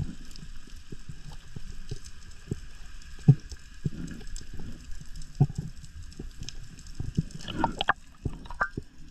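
Underwater sound picked up by a spearfisher's camera as he swims: irregular muffled thumps and knocks from his movement and handling of the gun, the loudest about three seconds in, over a faint steady hiss. A few sharper clicks come near the end.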